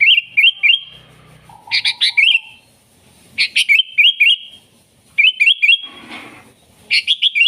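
Sooty-headed bulbul singing: a short bubbly phrase of a few sharp notes and quick rising whistles, repeated about every second and a half, five times.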